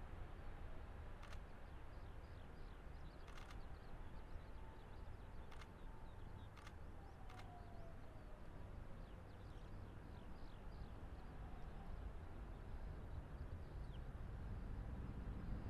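Faint, steady low rumble of an airliner's twin jet engines climbing away after takeoff. A faint whine falls in pitch about seven seconds in, and there are a few faint ticks in the first half.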